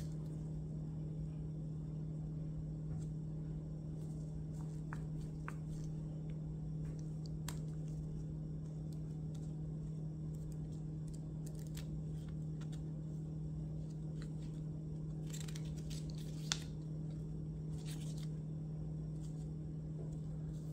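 Quiet handling of paper and card: soft rustles, page flicks and small taps as a printed booklet and a cardboard card sleeve are turned over in the hands, with one sharper click late on. A steady low hum runs underneath.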